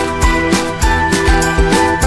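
Background music with a steady beat and bright tinkling notes.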